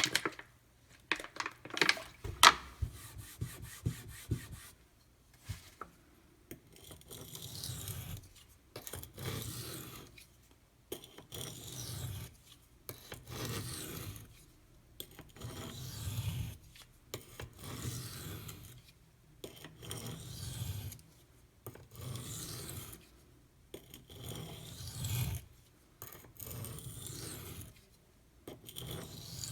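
Maxamet steel knife blade being stroked across a coarse 150-grit Kyoto sharpening stone, a gritty scraping pass about once a second, in the sharpening passes that bring the edge to an apex. A few sharp clicks come first, in the opening seconds.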